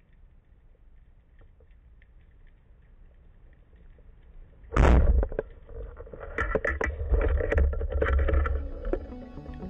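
A speargun fired underwater about five seconds in: a single sharp crack, followed by a run of knocks and rattles from the shaft and line. Before the shot, only faint clicking underwater background.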